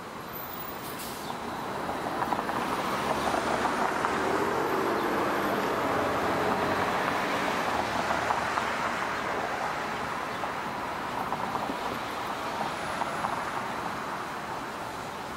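Steam from an underground district steam system venting up through a cast-iron manhole cover: a steady hissing rush that swells over the first few seconds and slowly fades toward the end.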